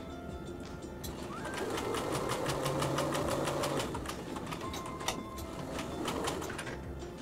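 Bernina sewing machine stitching a seam through quilt block patches, a fast even run of stitches starting about a second in. It stops with a click about five seconds in, then runs again briefly.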